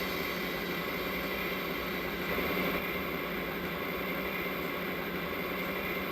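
Recorded DD51 diesel locomotive engine sound played through a model-train sound box, running steadily at a low throttle setting. The higher hiss drops away about three seconds in.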